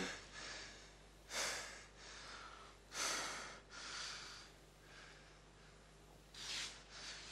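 A man breathing heavily through an open mouth: four loud breaths spaced a second or two apart, with a longer gap before the last.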